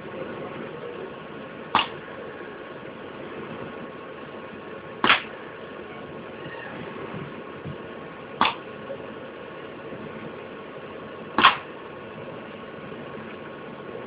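Robot running with a steady hum, broken by a short sharp clack about every three and a third seconds, four times.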